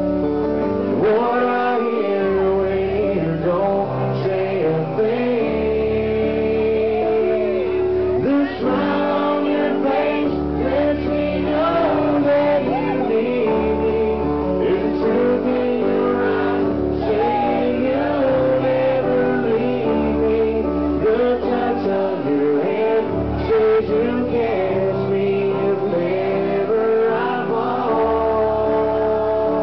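Live country band playing a slow ballad, with a male lead vocal singing over guitar and band accompaniment.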